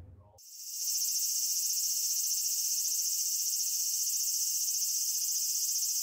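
A chorus of cicadas buzzing steadily in high, finely pulsing tones. It comes in about half a second in after a brief silence and then holds level.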